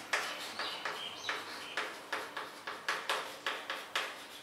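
Chalk writing on a blackboard: quick taps and scratchy strokes, several a second at an uneven pace, with a few short high squeaks of the chalk about a second in.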